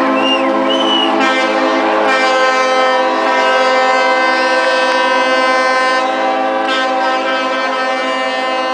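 Many boat horns sounding together in a loud, dense chord of steady tones, with horns joining and dropping out so the chord shifts several times; a couple of short whistles come in the first second. Boats in a harbour sound their horns like this as a salute at the end of a fireworks display.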